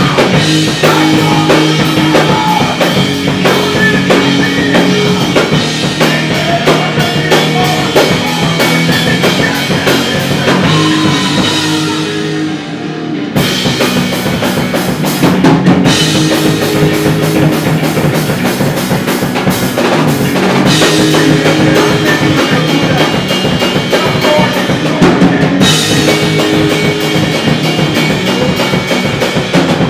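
Live melodic hardcore rock band playing loud, with drum kit, bass and guitars; the band briefly drops out about twelve seconds in, then comes back in full.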